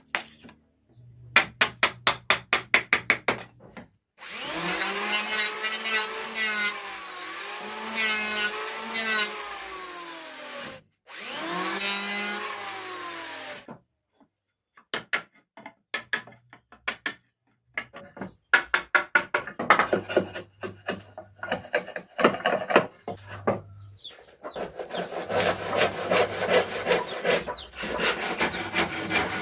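Hand saw cutting wood to make a door tenon, in runs of quick rhythmic strokes. From about four to fourteen seconds come longer continuous strokes, with a ringing tone that rises and falls with each pass.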